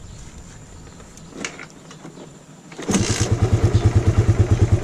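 Suzuki Raider 150's carbureted single-cylinder four-stroke engine starting about three seconds in, catching at once and settling into a steady, evenly pulsing idle at about 1,500 rpm.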